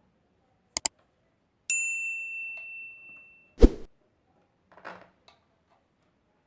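A single bright metallic ding that rings and fades over about a second and a half, preceded by two quick clicks and followed by a heavy thump, the loudest sound here.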